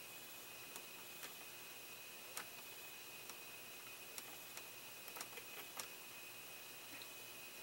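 A dozen or so faint, irregular light clicks and taps of a small hand tool working on plastic model parts and wiring, over a faint steady high whine.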